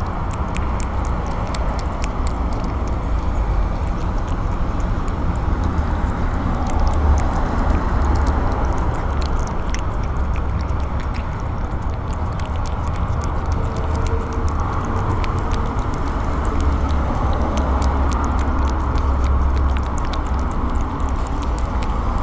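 A cat eating wet food from a plastic bowl right beside the microphone: many quick, irregular wet chewing clicks over a steady low rumble.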